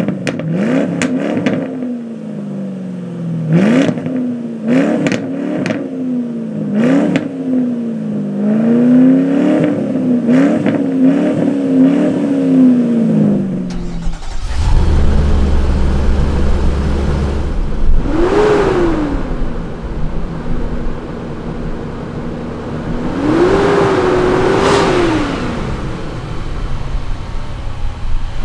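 2010 Ford Mustang GT's V8 exhaust, recorded at the tailpipes, revved in a quick series of short throttle blips that each rise sharply and fall back. About halfway through it gives way to a 2016 Infiniti QX80's V8 idling steadily at the exhaust and then revved twice, the second rev held for a couple of seconds.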